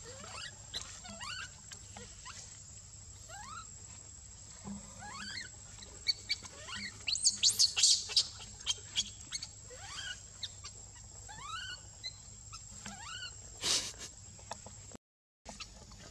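Infant macaque giving repeated short cries that rise in pitch, about one a second, the distress calls of a baby left on its own. About seven seconds in comes a louder burst of high squeals, and near the end a single sharp noise.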